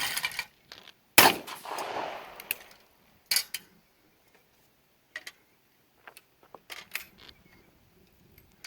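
A shotgun fires once about a second in, the blast echoing for over a second. A sharper crack follows about two seconds later, then a few light metallic clicks.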